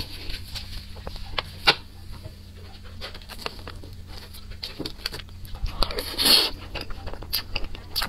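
Close-miked eating sounds: scattered wet mouth clicks and smacks from chewing soft mango crepe cake, with a spoon cutting into the cake and a louder scrape about six seconds in.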